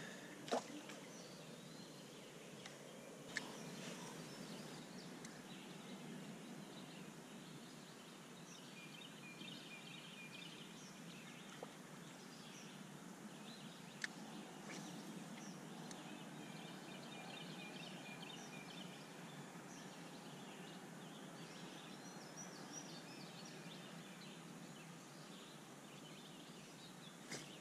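Quiet outdoor ambience with birds singing several trilled phrases over a faint steady low hum, and a few light clicks.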